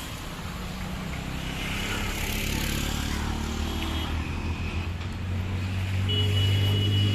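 City road traffic. A motor vehicle's engine hum builds up close by over the second half and is loudest near the end, over a steady wash of traffic noise.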